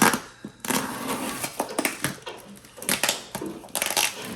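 Skateboard-wheel packaging being handled and pulled open by hand: irregular crinkling, crunching and scraping, with a few sharper bursts.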